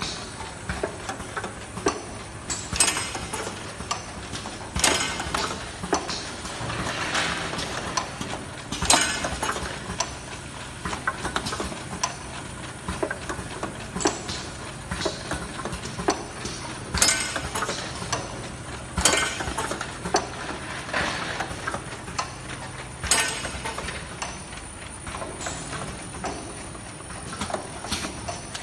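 Automatic bottle filling and capping line running, with a busy mechanical clatter. Sharp clacks come every few seconds as the star-wheel and capping head cycle, over a faint steady motor hum.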